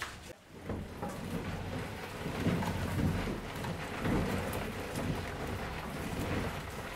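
Sun-dried grapes tipped out and falling in a shower onto the concrete floor of a grape-treading pit, a steady rushing patter of many small pieces landing: the grapes are being loaded for treading in traditional winemaking.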